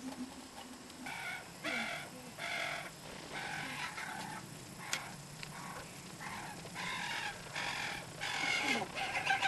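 Fledgling carrion crow giving repeated harsh begging calls at feeding time. Short calls come about one or two a second, in two bouts with a pause of a couple of seconds in the middle.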